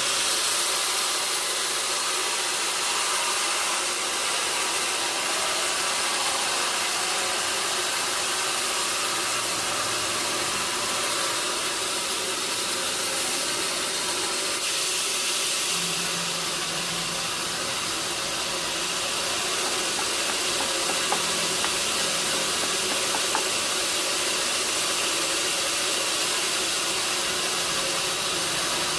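Sawmill machinery running steadily while sawing a mahogany log: an even, hiss-heavy machine noise with a few faint ticks about two-thirds of the way through.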